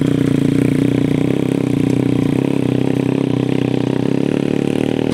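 Off-road motorbike engine running steadily as the bike climbs a slippery muddy slope, growing a little fainter as it moves away about halfway through.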